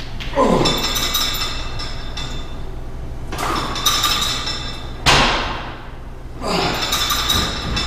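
Multi-station gym machine lifting its full 200-pound weight stack on the incline chest press in slow repetitions. Each press and return brings a swish that rises in pitch as the stack goes up and falls as it comes down, with the steel plates clinking and ringing.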